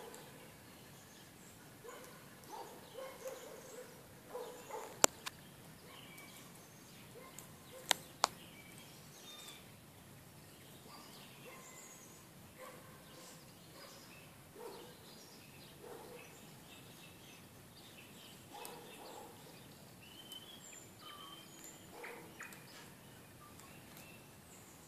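Faint outdoor ambience with scattered short, distant small-bird chirps. Sharp clicks cut through, one about five seconds in and two close together about eight seconds in.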